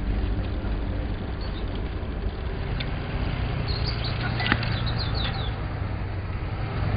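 Outdoor ambience: steady noise with a low rumble of a vehicle engine, and a few short high chirps and a click about four to five seconds in.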